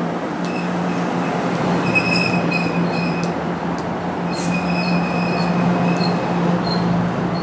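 NJ Transit Multilevel double-deck passenger coaches rolling slowly along the platform, their wheels giving high, on-and-off squeals over a steady low hum.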